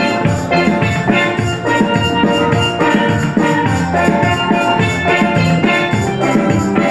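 Upbeat instrumental music: a steady drum beat under bright pitched melody notes.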